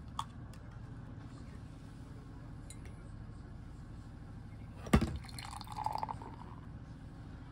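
Beer glass clinking once about five seconds in, followed by a short gurgle of beer being poured, over a steady low hum.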